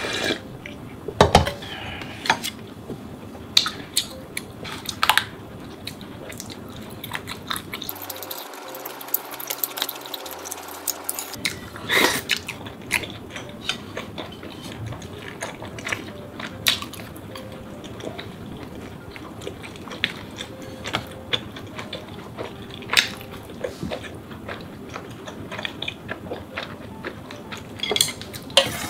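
Eating sounds: chewing and mouth noises, broken by sharp clinks and knocks of chopsticks and a spoon against a metal ramen pot and dishes, several of them loud.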